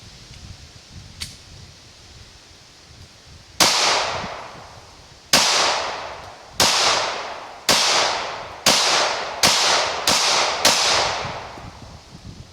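12 gauge shotgun fired eight times in a quickening string, each shot a sharp bang with a ringing tail that dies away over about a second. A faint click comes before the first shot.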